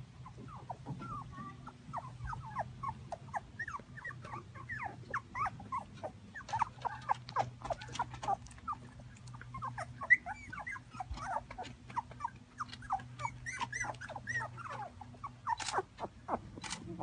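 Dog whimpering in a rapid run of short, high squeaks, over a steady low hum.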